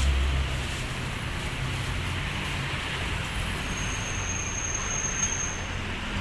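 Steady road traffic noise, with a passing vehicle's low rumble fading away in the first second.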